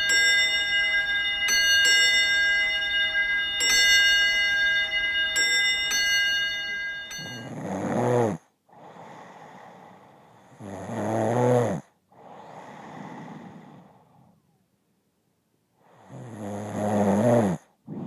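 Chiming clock bells ring with several strikes and die away about seven seconds in. Then a woman snores loudly three times, with quieter breaths between the snores and a short pause before the last one.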